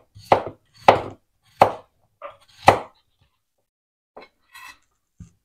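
Chef's knife slicing a peeled potato into rounds on a plastic cutting board: about five cuts in the first three seconds, each a sharp knock of the blade on the board. A few fainter knocks follow near the end.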